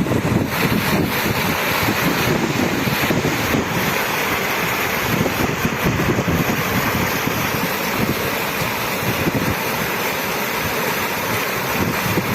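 Running water rushing steadily, a continuous even hiss and splash with no change in level.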